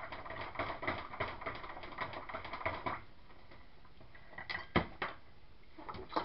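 Rapid clicking and scraping of a utensil against a plastic bowl as soap batter is stirred by hand, stopping about three seconds in; a few separate knocks follow.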